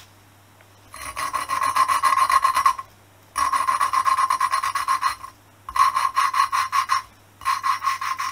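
Valve lapping in a Honda XL250S cylinder head: a hand lapping stick spins the valve rapidly back and forth on its seat, the grinding paste rasping between valve face and seat. It comes in four spells of quick strokes, each one to two seconds long, with short pauses between.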